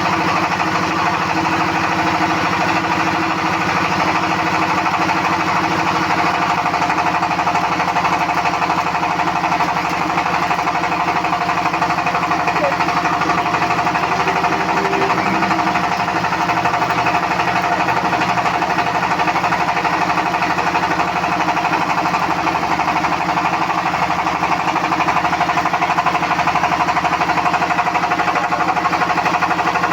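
Welding equipment running continuously: a loud, steady buzzing noise with a fast crackle and a constant hum, unbroken throughout.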